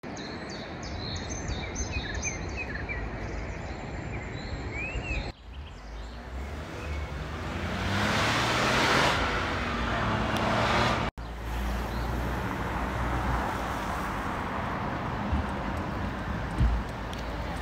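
Outdoor street ambience in cut segments: small birds chirping over a steady hiss for the first five seconds. Then a car passes, its rush swelling and fading around eight to ten seconds in. Then a steady hiss with wind rumbling on the microphone.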